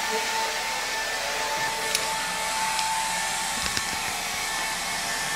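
A steady loud rush of blown air with a constant high motor whine, as from a small electric blower motor. It stays the same throughout, with a couple of faint ticks.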